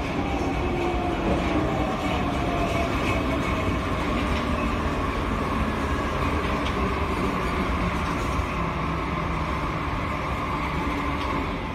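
Metro train pulling into an underground station and slowing: steady rumble of wheels on rails, with a whine that falls in pitch as it brakes. The sound eases off near the end as the train comes almost to a stop.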